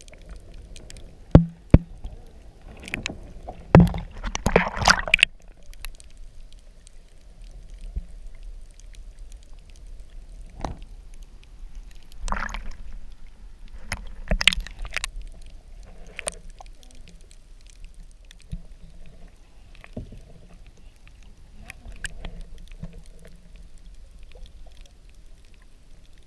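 Water sloshing and splashing around a waterproof action camera moving through shallow water and breaking the surface, with scattered sharp knocks on the housing. The loudest cluster of splashes comes a few seconds in.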